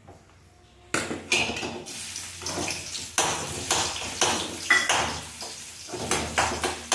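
Crushed garlic frying in hot oil in a small kadai for a tempering, sizzling with a sudden start about a second in, while a metal spoon stirs it, scraping and clinking against the pan.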